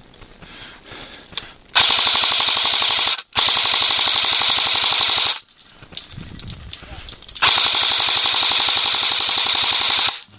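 Airsoft rifle firing full-auto in three long bursts of rapid, evenly spaced shots, the last the longest, with short pauses between.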